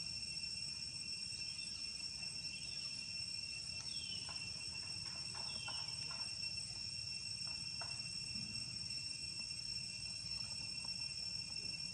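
Steady outdoor insect chorus, several continuous high-pitched tones droning together, with two short falling chirps about four and six seconds in.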